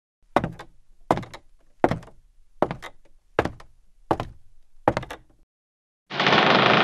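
Knocking on a door, seven evenly spaced knocks about one every three-quarters of a second, each a quick cluster of strokes. A loud rushing noise cuts in about six seconds in.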